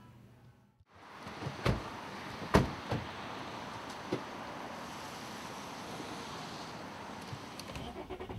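Car doors shutting: two solid thuds about a second apart, then a couple of lighter knocks, over a steady hiss.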